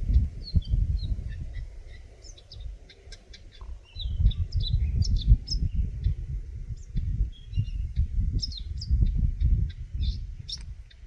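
Eurasian nuthatch giving many short, high chirps at uneven intervals, over a loud, gusty low rumble.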